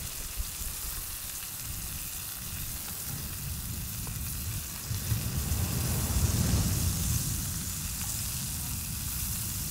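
Grouper fillets frying in palm oil in a cast-iron skillet, a steady sizzle, while hot oil is ladled over them. A low rumble swells through the middle.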